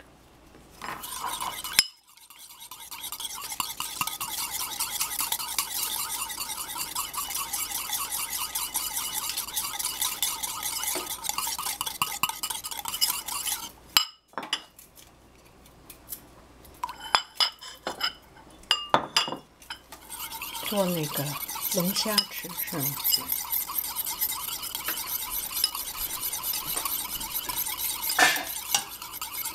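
Stainless wire whisk beating egg yolk, mustard and oil by hand in a bowl: a fast, steady rattle of the wires against the bowl. It stops for a few seconds about halfway through, with a few separate clicks, then starts again as the mayonnaise thickens.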